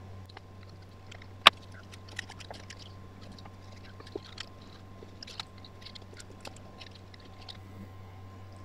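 Light clicks and rustles of cardboard model pieces being handled and slotted together on a table, with one sharp tap about a second and a half in. A steady low hum runs underneath.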